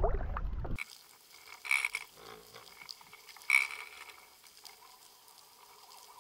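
Underwater audio from a camera rigged on a fishing line as it is reeled up: a faint hiss with two sharp clicks about two seconds apart. It opens with a moment of wind noise on the microphone above the water, then cuts suddenly.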